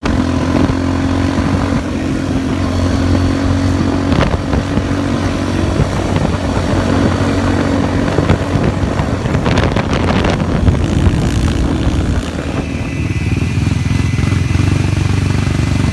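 ATV engine running steadily under way, heard close up from the rider's seat. About twelve seconds in the sound changes to a different ATV engine note with a thin high whine over it.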